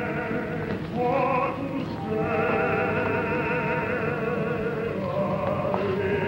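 Background music score of slow, sustained high melody notes with heavy vibrato, changing notes about one and two seconds in.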